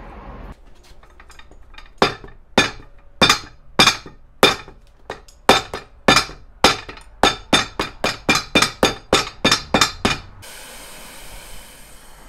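Hammer striking a freshly cemented Vibram 430 rubber sole on a boot held on a last, pressing the sole into its bond: about twenty sharp blows, slow at first and quickening to about four a second in the second half.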